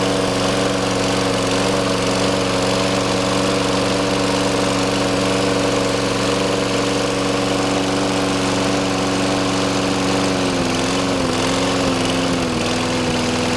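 Briggs & Stratton Quantum engine of a Toro Recycler walk-behind lawn mower running steadily. About ten seconds in its pitch wavers up and down for a couple of seconds, then settles a little lower.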